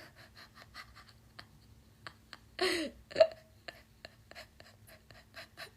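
Fingernails tapping on a phone's touchscreen, a run of light ticks about three or four a second. A short hum of voice breaks in about two and a half seconds in.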